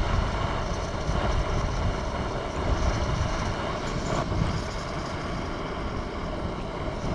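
Steady outdoor noise dominated by a fluctuating low rumble, like wind buffeting the microphone.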